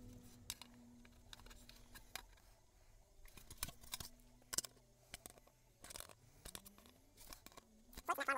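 Hand fluting pliers crimping flutes into the flange of a formed aluminum wing nose rib: faint, scattered clicks and squeezes of the tool with light rattles of the thin sheet, bunched in short runs.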